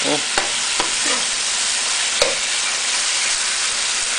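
Deboned duck feet in sauce sizzling steadily as they are stir-fried in a wok, with a few sharp clicks of the wok spatula against the pan.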